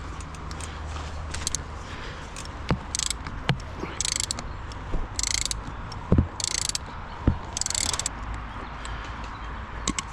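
Mountain bike drivetrain turned by hand: several short bursts of freehub ratchet clicking, with a few sharp knocks, as the bike is checked for why the chain dropped.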